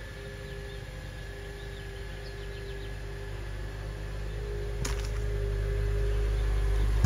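2006 Acura TSX's 2.4-litre four-cylinder engine running at idle as the car backs slowly out in reverse, its low rumble growing steadily louder as it comes closer. A single sharp click sounds a little before five seconds in, and a few faint chirps are heard early on.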